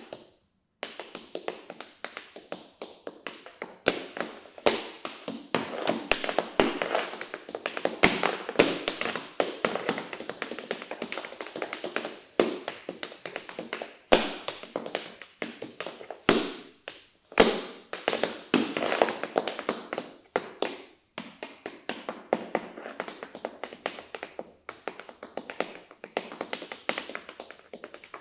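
Tap shoes on a hard floor in an unaccompanied tap dance improvisation: fast, dense runs of taps with louder accented strikes here and there, starting about a second in after a brief pause.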